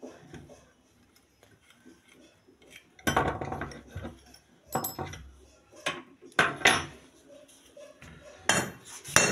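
Metal pump parts and a spanner being handled on a workbench while a water pump's impeller is taken off its shaft: quiet handling at first, then a run of sharp metallic clanks starting about three seconds in.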